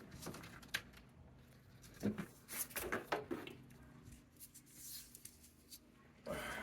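A few scattered light knocks and clicks of handling, with a faint steady hum setting in about three seconds in.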